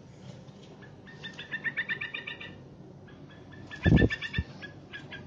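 Bulbul giving rapid chattering call notes in two quick runs. A dull thump comes about four seconds in.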